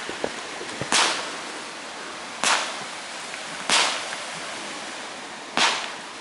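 Consumer firework firing glowing comet shots into the sky: four sharp pops a second or two apart, each tailing off quickly, over a steady hiss.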